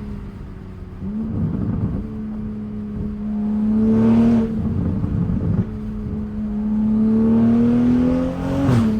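Toyota Supra's turbocharged engine, with catless downpipe and aftermarket exhaust, pulling under throttle, its note rising slowly. Short bursts of noise break in where the throttle lifts, about a second in, around four seconds in, and near the end, where the revs drop sharply as with a gear change.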